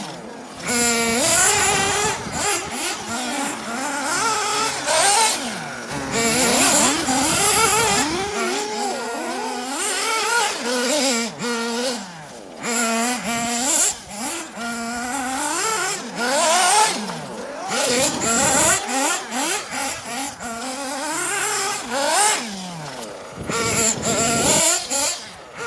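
Kyosho Inferno MP9 TKI4 1/8-scale nitro buggy's small nitro engine revving up and down again and again as it is driven hard. Its high buzzing pitch rises and falls many times, with a few short bursts of rushing noise.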